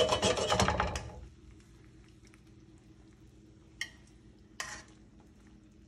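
A steel skillet clattering and scraping on the gas range's grates for about a second, then a faint steady hum broken by two light metal clicks of tongs lifting a steak out of the sauce onto a plate.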